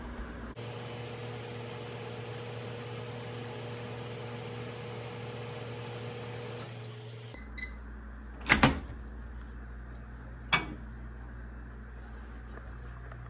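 IKEA IMH160FW over-the-range microwave running with a steady hum while heating a glass of water, working again after its door switches were adjusted. About seven seconds in it stops and beeps twice to end the cycle. A loud double clack follows about a second and a half later, then a single knock two seconds after that.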